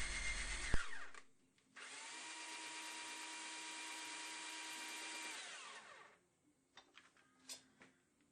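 A spoke thread-rolling machine running steadily for about four seconds, then winding down, followed by a few light clicks.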